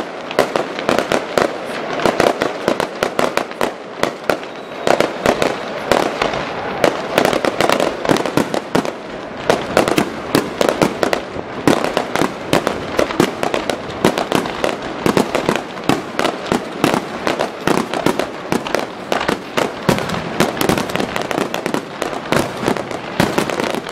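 Fireworks display: aerial shells bursting in a dense, continuous barrage of many bangs and crackles a second.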